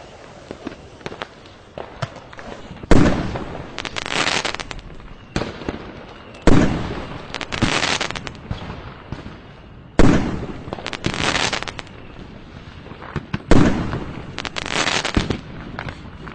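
New Year firecrackers and fireworks going off: a loud bang four times, roughly every three and a half seconds. Each bang is followed by about a second of rapid crackling pops, with scattered smaller pops between.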